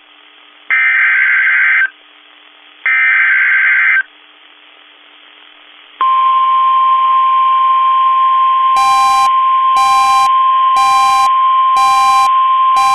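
NOAA Weather Radio emergency alert: the last two bursts of the SAME digital header, each a raspy data screech about a second long with a second's pause between. About six seconds in comes the steady 1050 Hz warning alarm tone, which signals that a warning message follows. From about nine seconds in, a separate beep pulses about once a second over the tone.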